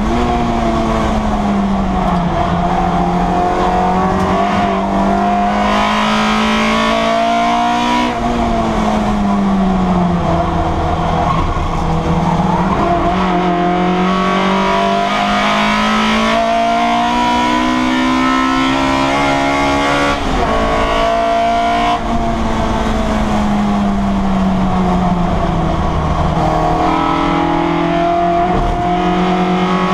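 Citroen Saxo race car's four-cylinder engine heard from inside the cabin at racing pace, its revs repeatedly climbing and falling, with a sharp drop about eight seconds in.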